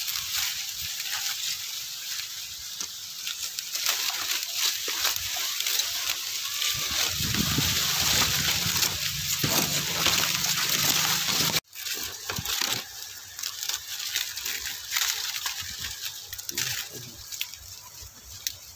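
Dry, brittle corn stalks and leaves rustling and crackling as someone pushes through a cornfield, brushing against the phone. About two-thirds of the way in, it cuts out and then carries on more sparsely.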